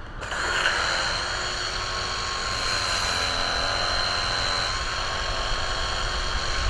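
Sunglife cordless electric pressure washer's motor and pump starting about a quarter second in, then running steadily with a high whine over the hiss of the spray.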